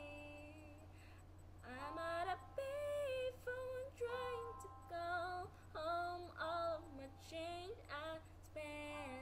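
A woman's voice singing a wordless melody in short, sliding notes with brief breaks between them, over a low steady hum.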